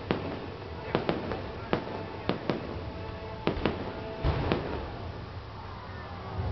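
Fireworks going off: a quick, irregular run of sharp bangs and cracks, about ten in the first four and a half seconds, then dying away.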